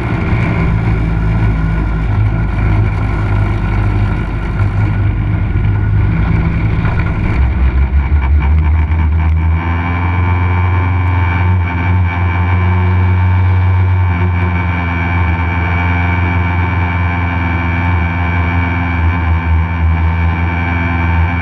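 Legend race car's motorcycle-derived engine under load, its pitch rising and falling through the first nine seconds or so, then settling into a steady, lower note.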